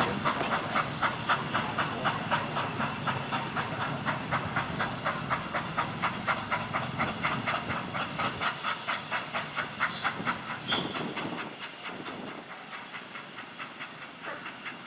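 Walt Disney World Railroad steam locomotive chuffing, about four exhaust beats a second with steam hiss, growing fainter after about eleven seconds.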